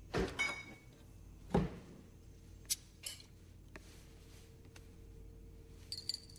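Kitchen cupboard and glass soda bottles being handled. There are a few knocks and a heavy thud in the first two seconds, lighter taps after that, and a short glassy clink near the end.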